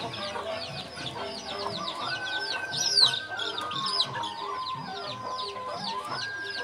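Chickens: chicks cheeping in quick, high, falling peeps, several a second and loudest about halfway through, with hens clucking lower beneath them.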